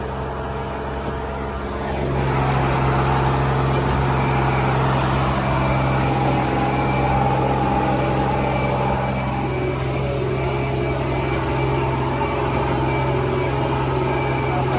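Heavy farm machinery's diesel engine running steadily. It grows louder about two seconds in, as if brought up in revs, and then holds there.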